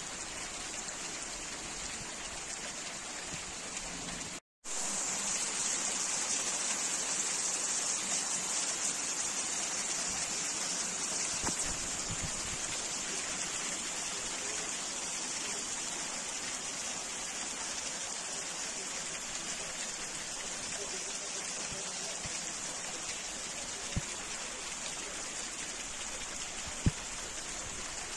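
Heavy rain pouring down steadily, an even hiss of falling water, cutting out briefly about four seconds in.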